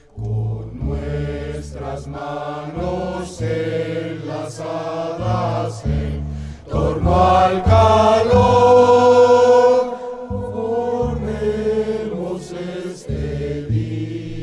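An estudiantina sings together as a group, backed by strummed and plucked strings with a bass line. About eight seconds in, the voices hold one long note for a couple of seconds.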